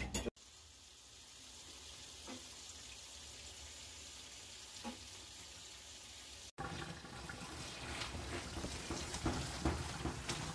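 Pot of water boiling steadily as cooked somyeon noodles are lifted out of it. About six and a half seconds in, the sound cuts to louder tap water running onto noodles in a plastic colander, with the clicks and splashes of hands rubbing and rinsing them.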